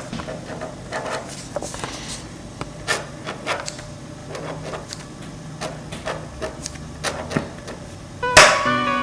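Ballpoint pen writing on paper: a run of short, irregular scratching strokes. Near the end, music comes in with a sharp loud hit followed by ringing held notes.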